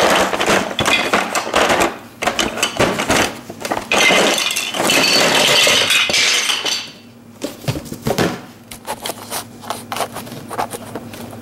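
Sped-up clatter of plastic Duplo bricks rattling and tumbling out of a cardboard box onto a table: a dense rush of rattling in the middle, thinning to scattered clicks near the end.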